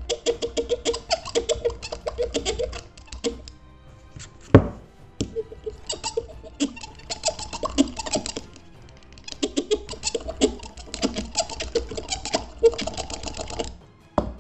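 A steel box-cutter blade scraping in quick back-and-forth strokes across smartphone glass (Corning Gorilla Glass 5), heard as dense runs of rapid ticks, first over the front screen and then over the back glass. A single loud knock comes about four and a half seconds in, with music underneath.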